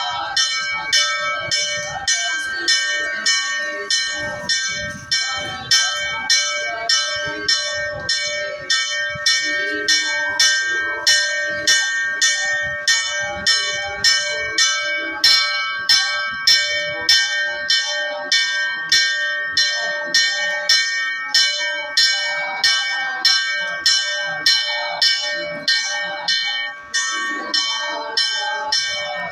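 Hindu temple bell rung steadily for aarti, struck about twice a second with its ringing tone carrying on between strikes.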